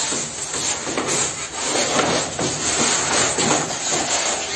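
Plastic underfloor-heating pipe being pressed into studded foam insulation panels, rubbing and scraping against the foam in a run of irregular strokes.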